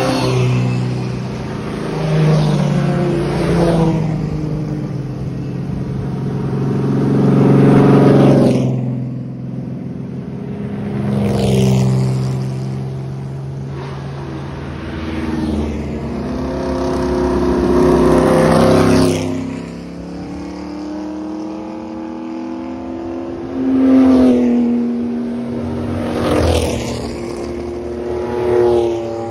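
Vintage race car engines passing one after another in a slow parade. Each swells in loudness as it nears and drops in pitch as it goes by, with revving between, about eight pass-bys in all.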